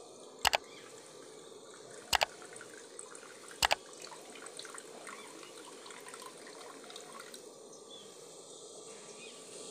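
Water trickling and dripping as it is poured off soaked rice from a steel bowl into a small bowl. In the first four seconds there are three sharp double clinks of the steel bowl knocking against the bowl's rim.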